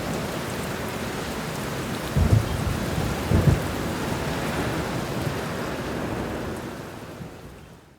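Steady heavy rain with low rumbles of thunder swelling twice, about two and three and a half seconds in, then the whole sound fades out near the end.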